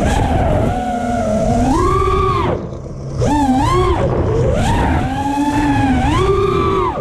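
FPV quadcopter's brushless motors and propellers whining, the pitch rising and falling as the throttle is worked, with a brief throttle drop about two and a half seconds in. Wind rumbles on the onboard camera's microphone throughout.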